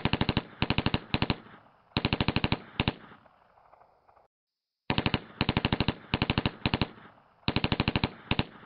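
Machine-gun fire in short automatic bursts of several rapid shots each, with an echo trailing after each string. The same run of bursts plays twice, with a brief silence midway.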